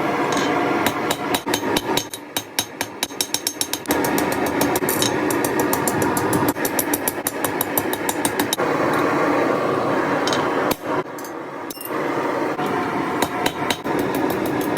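Rapid, regular hammer blows on metal being forged, several a second, over a steady rushing noise; the blows thin out after the first half.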